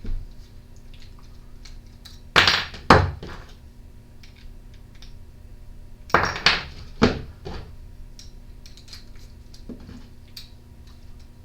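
Handling tools and small parts on a workbench while removing the screws that hold a string trimmer's primer bulb on: two clusters of knocks and clatters, one about two and a half seconds in and one about six seconds in, with light ticks between.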